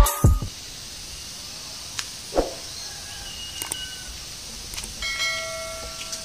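Music cuts off at the start, followed by quiet outdoor ambience: a steady faint hiss with a click, a short low thud, a few brief high chirps, and a held tone lasting about a second near the end.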